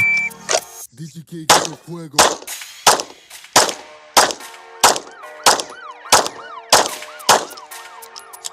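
A short electronic shot-timer beep, then a Glock 17 9 mm pistol fired in a steady string of about ten shots, roughly one every two-thirds of a second: the first two strings of five of a pistol standards drill.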